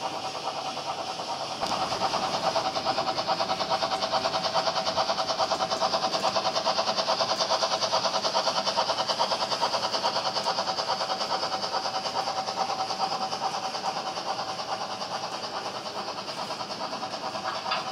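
Model train running past at close range: a fast, even clatter of the wagons' wheels on the track together with a steady hum from the locomotive's electric motor, getting louder about two seconds in.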